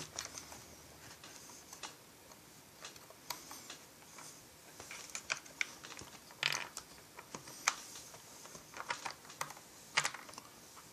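Scattered light clicks and taps of hard plastic chainsaw parts being handled on a workbench, uneven in spacing, with a few louder knocks about six and ten seconds in.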